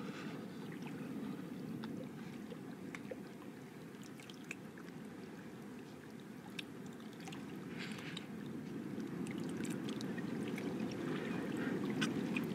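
Lake water lapping and sloshing gently around two people standing in it, with scattered small splashes and drips, growing a little louder near the end.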